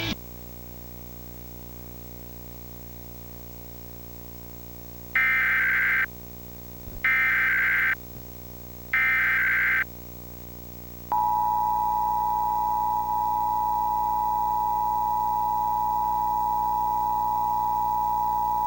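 Emergency Alert System test over cable TV: after a few seconds of low hum, three short screeching SAME header data bursts about two seconds apart, then, about eleven seconds in, the steady two-tone EAS attention signal (853 and 960 Hz sounding together).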